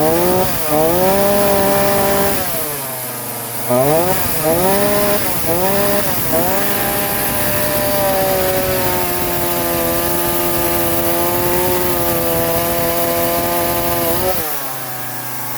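Homelite 42cc two-stroke chainsaw running just after a cold start, engine still cold: it is revved up and back down, blipped several times, then held at high revs for about eight seconds before dropping back to idle near the end.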